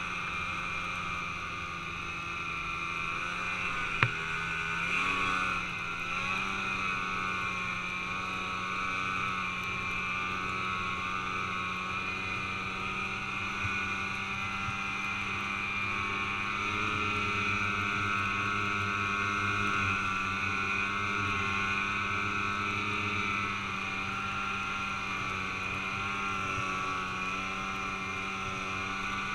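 Snowmobile engine running steadily at a cruise while riding through snow, its pitch holding nearly level with a slight step up about five seconds in. A single sharp click sounds just after four seconds.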